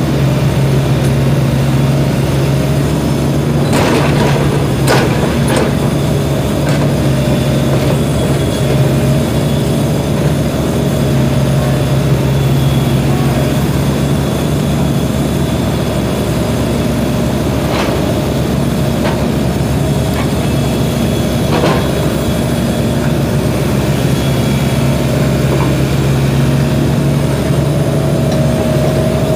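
SANY mini excavator's diesel engine running steadily under load as it digs and slews, with a steady hum and a higher steady tone above it. A few sharp knocks cut through it, three close together about four to six seconds in and two more later on.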